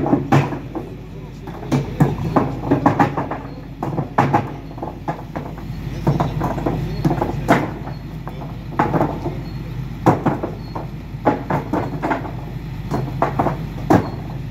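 Paving stones knocking and clacking against each other at irregular intervals as they are pried loose and handled by hand, over a low steady engine hum.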